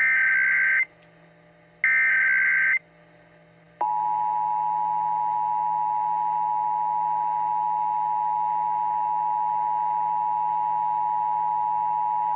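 Emergency Alert System signal: the last two bursts of the SAME data header, each a one-second warble about a second apart, then the EAS two-tone attention signal begins about four seconds in and holds steady.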